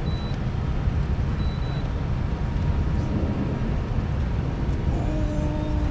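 Steady low rumble with no clear pitch, with a brief faint hum near the end.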